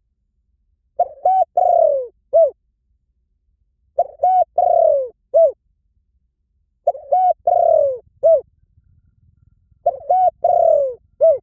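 Spotted dove cooing: four phrases about three seconds apart, each of four coos, the third drawn out and falling in pitch.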